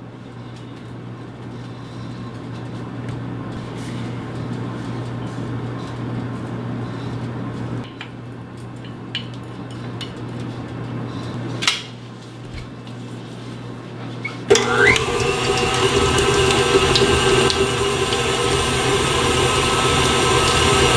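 A few light clicks of utensils, then about fourteen seconds in a stand mixer switches on with a short rising whine and runs steadily, its beater working cream cheese, butter and honey into icing.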